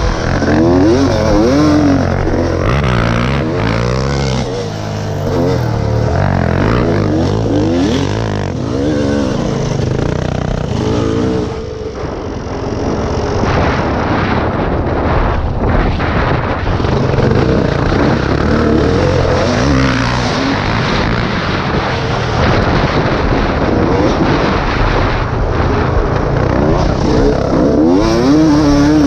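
Yamaha YZ250 two-stroke dirt bike engine revving up and down as the bike rides hard around a dirt track, heard close from the bike with wind rush. The pitch rises and falls again and again with the throttle, easing off briefly about twelve seconds in.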